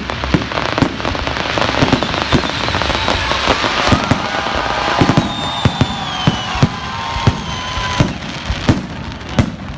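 Fireworks salute going off: a rapid string of sharp bangs from bursting shells, with dense crackling in the middle. A few whistles falling in pitch come about five seconds in.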